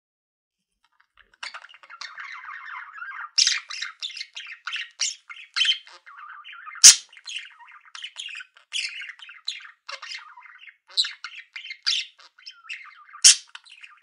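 Budgerigar chatter: a dense, busy run of short warbling chirps and clicks that starts after about a second and a half of silence, broken by sharp, louder squawks about halfway through and again near the end.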